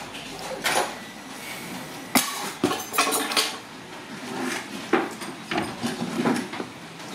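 Plastic toy building blocks clicking and clattering as they are handled and pushed together, a string of irregular sharp clicks about every half second to second.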